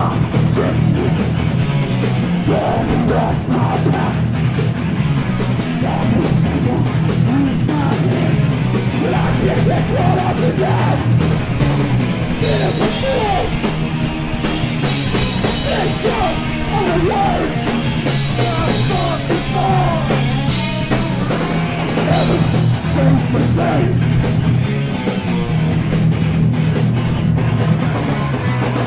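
Hardcore punk band playing live: distorted electric guitars, bass and drums with shouted vocals, loud and dense throughout. The cymbals come in harder about halfway through.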